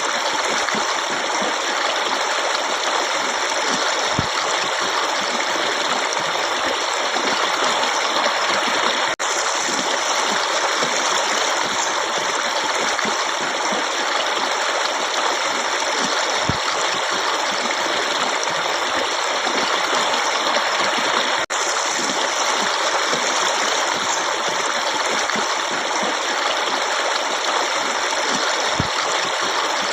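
Running water in a stream flowing steadily, a dense, even rush. The sound drops out for an instant twice.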